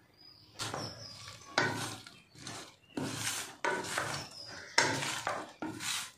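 Sliced onion, tomato and green chilli with chilli powder being stirred and tossed in a stainless steel bowl: a run of irregular scraping and rustling strokes against the bowl.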